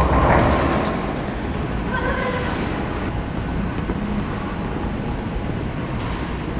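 Bowling alley ambience: a steady rumble of balls rolling down lanes and lane machinery, with a louder swell of noise in the first second and faint voices in the background.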